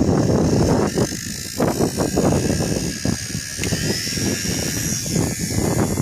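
Strong gusty wind buffeting the microphone, with the thin high whine of a WLtoys V977 small electric RC helicopter's motor and rotors spinning up, rising in pitch about four seconds in as it lifts off.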